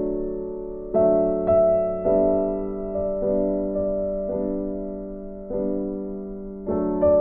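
Music: piano chords struck every second or so, each left to ring and fade.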